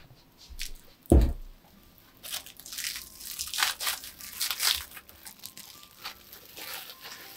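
A metal loaf tin set down on a wooden table with a single thud about a second in, then plastic cling film crinkling and rustling as it is pulled off the tin.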